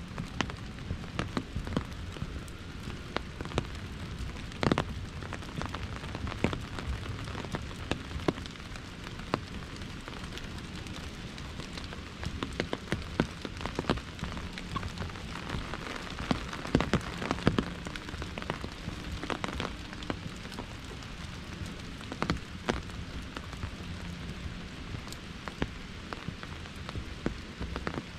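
Rain falling on an umbrella: a steady hiss of drops with irregular louder single drips striking the canopy, thicker for a few seconds about halfway through.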